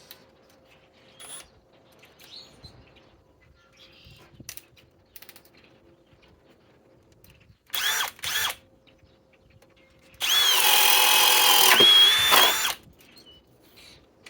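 Hercules cordless drill driver spinning a 7/8-inch spade bit. Two brief trigger blips come about eight seconds in. Then it runs for about two and a half seconds as it bores the hole, its motor whine sagging in pitch under load before it stops.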